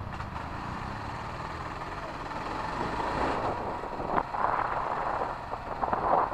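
Motorcycle riding through town traffic, heard from the rider's helmet: steady engine running with road and street noise, getting louder and rougher from about halfway in.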